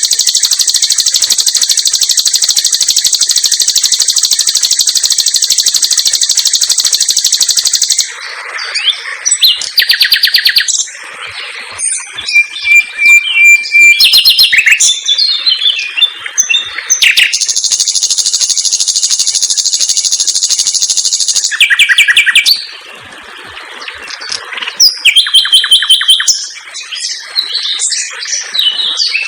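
A sikatan londo songbird singing: a very fast trill held for about eight seconds, then short varied phrases and chirps, a second long trill in the middle, and bursts of rapid repeated notes (the 'tembakan' shots) near the end.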